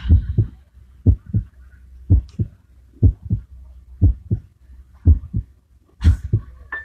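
A heartbeat effect over the band's sound system: deep double thumps, lub-dub, about once a second, seven beats in all.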